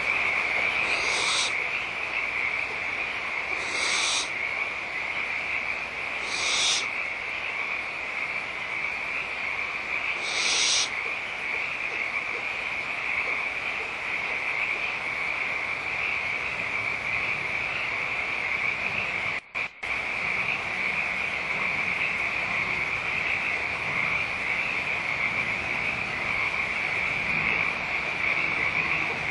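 A dense, unbroken chorus of high-pitched animal calls, with four short hissing bursts in the first ten seconds. It briefly cuts out about two-thirds of the way through.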